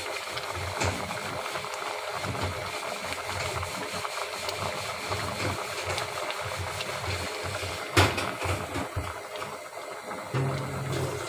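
Chicken curry boiling hard in an open aluminium pressure cooker, bubbling steadily with irregular low blips. A single sharp knock about eight seconds in.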